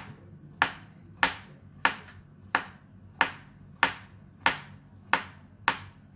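Kitchen knife slicing a peeled banana on a plastic cutting board: the blade taps sharply against the board with each slice, about ten evenly spaced taps, roughly one and a half a second.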